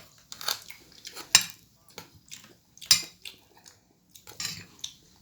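Cutlery clinking and scraping against a plate during a meal: a string of irregular light clicks and knocks, the sharpest about one and a half and three seconds in.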